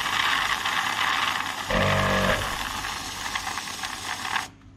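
Compressed air hissing steadily out of the open end of an ARB air locker line, blowing oil out of a line that had filled with diff oil and stopped the rear locker working. A brief low buzz sounds about two seconds in, and the hiss cuts off suddenly near the end.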